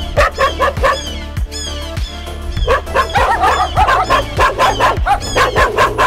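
A dog barking and yipping in quick, repeated barks, about three a second and thickest in the second half, over background music with a steady bass beat.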